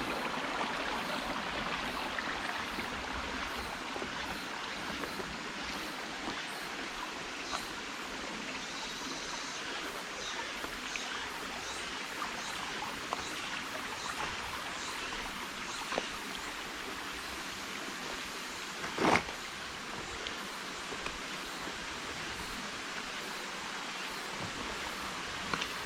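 Mountain valley stream water rushing steadily over rocks, with scattered faint clicks and one louder brief thump about three quarters of the way through.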